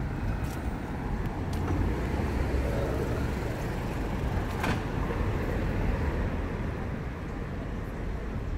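City street traffic: motor vehicles running by in a steady low rumble, with a single sharp click about halfway through.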